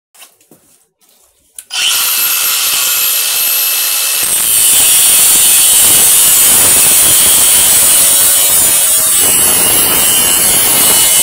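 A Milwaukee M18 cordless angle grinder clicks on a little under two seconds in and runs with a high whine. At about four seconds its abrasive cut-off disc bites into steel and cuts with a loud, steady, harsh grinding.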